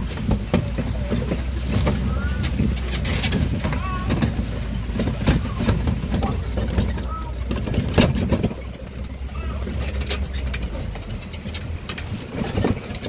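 Tourist train running along a stony farm track: a steady low engine rumble with frequent rattles and knocks as the cars jolt. The rumble eases a little past halfway.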